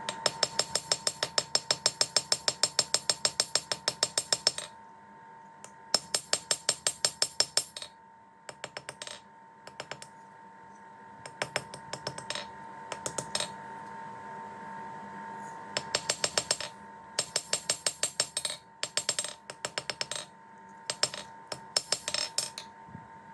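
Hammer blows on an anvil in fast runs of about four or five strikes a second, each with a bright metallic ring, broken by short pauses between bursts. A steady hum runs underneath.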